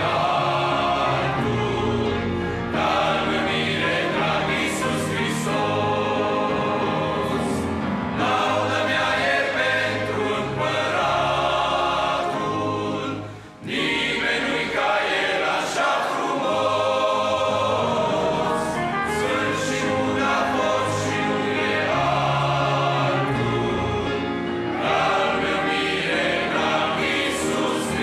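Men's choir singing a Romanian gospel hymn with instrumental accompaniment, the music breaking off briefly about halfway through before it resumes.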